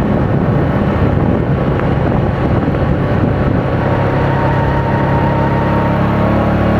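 The 500 cc petrol engine of a children's replica sports car runs steadily under way with a continuous drone. A faint higher whine joins for about two seconds in the second half.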